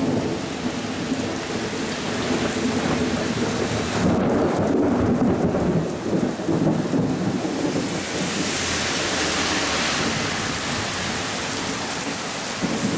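Heavy downpour of rain, steady throughout, with thunder rumbling underneath for several seconds.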